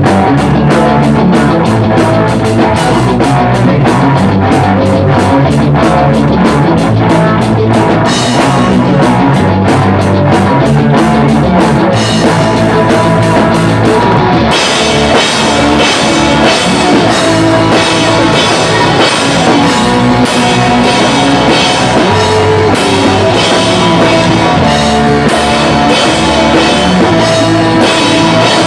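Pop-punk band playing with drum kit and electric guitars, the drums driving a steady beat. About halfway through, the cymbals open up and the sound gets fuller.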